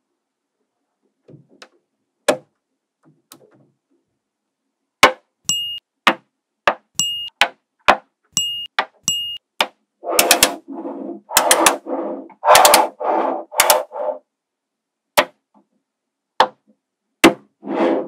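Small metal magnet balls clicking and snapping together as cubes built from them are handled and set down. The clicks are sharp and separate, several with a brief high ring, with a run of louder, quicker clattering about ten seconds in.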